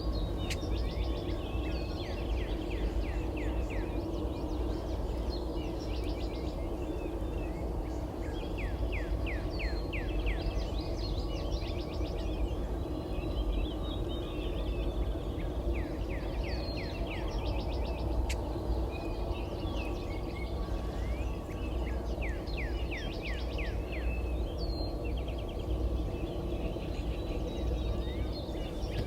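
Morning bird ambience: birds singing short, quick repeated phrases again and again over a steady low rumble of background noise, with one sharp click about two-thirds of the way through.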